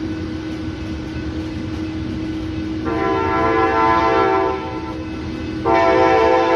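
Locomotive air horn of an approaching Amtrak San Joaquin train, sounding two long blasts, the first about three seconds in and the second near the end, over a steady low rumble.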